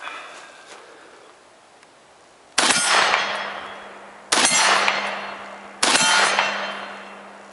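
Three rifle shots about a second and a half apart, each followed by a steel target ringing and fading over more than a second.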